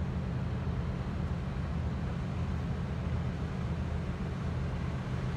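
Container ship's engine and hull passing close by: a steady low rumble with a faint hum in it, no horn.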